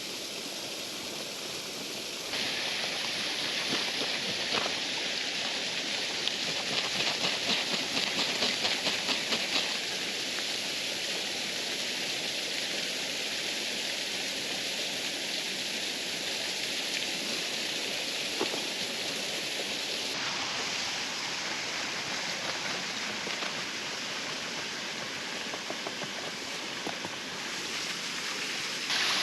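Rushing water of a waterfall, a steady hiss. It shifts abruptly in tone and loudness a few times.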